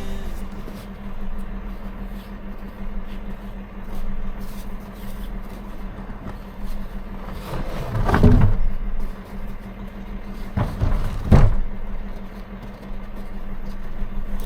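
A small engine running steadily at idle, with two loud knocks about eight and eleven seconds in.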